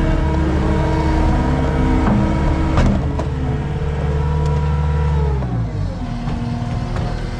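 Skid steer's engine running at high throttle, winding down in pitch to a lower idle about five seconds in, with one sharp clank a little before that.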